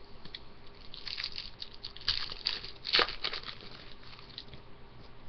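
Hockey trading cards being handled and sorted by hand: irregular rustling and crinkling as cards slide against each other, busiest about one to three and a half seconds in, with a sharper snap about three seconds in.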